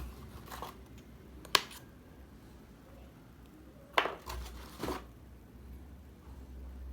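Handling noise while unpacking: a handful of short sharp clicks and rustles, the sharpest about a second and a half in and again at about four seconds.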